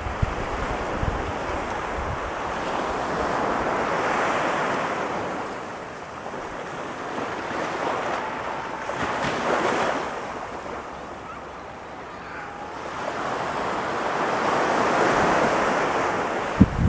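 Ocean surf breaking and washing up the beach, the wash swelling and easing three times, roughly every five to six seconds.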